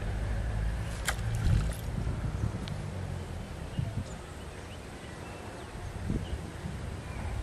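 Low, uneven wind rumble on the microphone, with one short sharp click about a second in.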